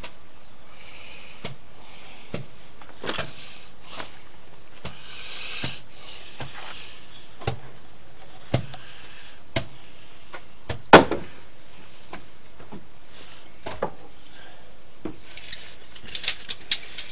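Scattered knocks and taps on wooden deck framing lumber, irregularly spaced. One strike about eleven seconds in is much louder than the rest, and a quick cluster of taps comes near the end.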